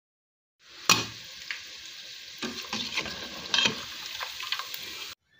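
Chin chin dough pieces deep-frying in vegetable oil in a metal pot, a steady sizzle, with a metal spoon knocking and scraping against the pot as the pieces are stirred and lifted. The loudest knock comes about a second in, and the sound cuts off suddenly near the end.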